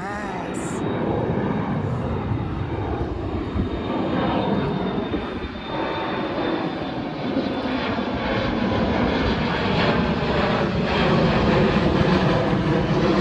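Airliner engines growing louder as the plane passes low overhead, with a falling whine in the second half.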